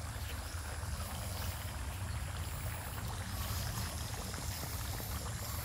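Steady outdoor background noise: an even rushing hiss over a low, fluttering rumble.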